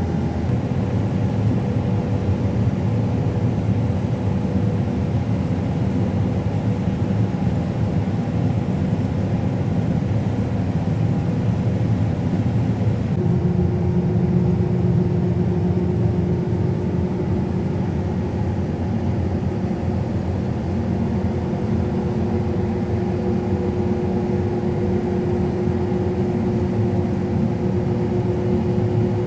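Steady drone of a combine harvester heard from inside its cab while cutting wheat. A constant whine in the hum drops to a lower steady pitch about halfway through.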